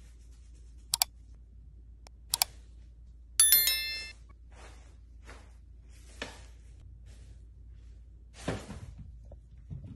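Subscribe-button overlay sound effects: two quick double mouse clicks, then a bright bell ding with a short ringing tail, the loudest sound. Soft rustles of cardboard and tissue paper follow as the cat shifts in the box.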